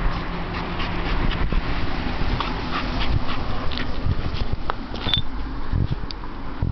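A group of puppies play-fighting, making many short dog noises one after another over a steady low rumble.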